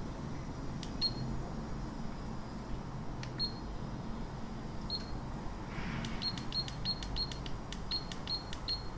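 Hawkeye Firefly 8S action camera beeping as its buttons are pressed to step through the settings menu: short high beeps, each with a small button click. A few spaced beeps, then from about six seconds in a quick run of about ten, roughly three a second, as the menu is scrolled.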